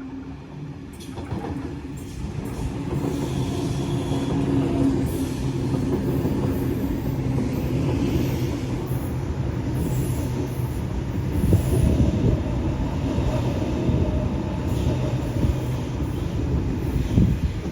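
Sydney Trains electric passenger train running along the platform, building up over the first few seconds. It gives a steady motor hum, with wheels clattering and squealing on the rails.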